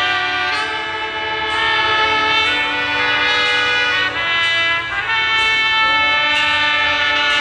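Orchestra of saxophones, trumpets, tubas and violins playing slow, held chords, the harmony shifting every second or two.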